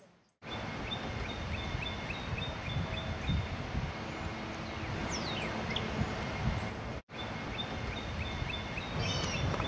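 Birds calling over steady outdoor noise with a low rumble: an even, fast series of short chips, and two falling whistles, one about halfway through and one near the end. The sound drops out completely for a moment just after the start and again about seven seconds in.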